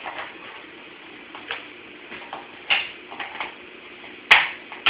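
Scattered light clicks and clinks of dishes being handled while a dishwasher is emptied, with one sharper knock about four seconds in.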